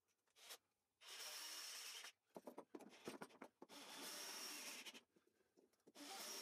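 Cordless drill driving screws into plywood: three quiet bursts of about a second each as the screws cut in, with small clicks and knocks between them.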